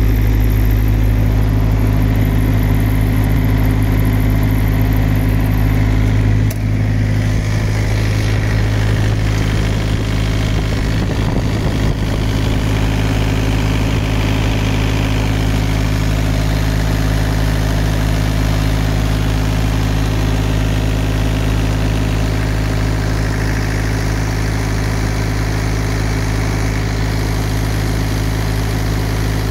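Small diesel engine of a trailer refrigeration unit running steadily at a constant speed.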